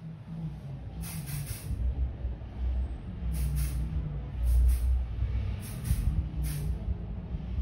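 Aerosol hairspray can spraying onto curled hair in about five short hissing bursts, with pauses of a second or more between them. A steady low hum runs underneath.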